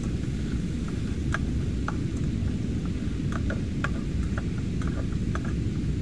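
Steady low rumble of wind and lake water, with scattered light ticks and taps from a cloth bag of food being squeezed and handled over an aluminium pot.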